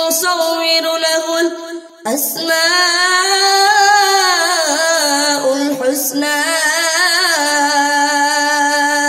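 A boy's voice reciting the Quran in melodic tilawat, holding long drawn-out notes. There is a brief pause for breath about two seconds in, then a new phrase whose pitch rises and falls.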